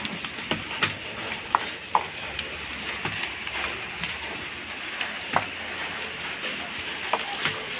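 Rain falling steadily, an even hiss with scattered sharp clicks.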